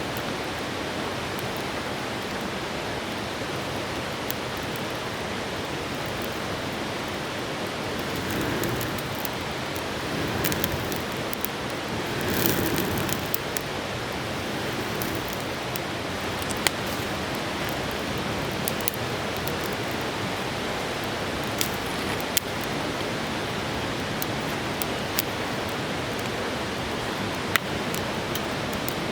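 Steady rush of a flowing river, with a few short swells and scattered sharp clicks.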